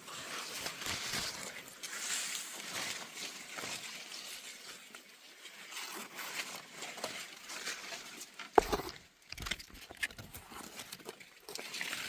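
Rustling and crackling with many small clicks, and one sharp knock about eight and a half seconds in.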